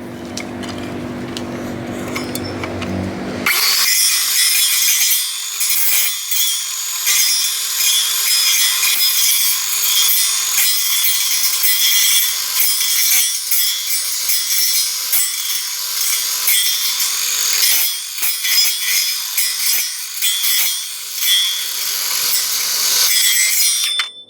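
A saw cutting through wood: a dense, gritty rasping that swells and eases for about twenty seconds, then stops abruptly near the end. A low, steady hum comes before it in the first few seconds, and the change to the cutting sound is sudden.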